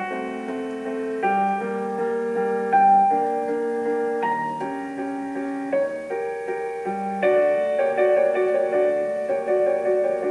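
Background piano music: struck notes and chords held and changing every second or so, with a busier run of notes in the last few seconds.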